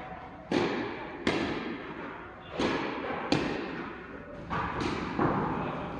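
Tennis rally: ball struck by rackets and bouncing on the court, about six sharp pops with short ringing tails, spaced irregularly roughly every second.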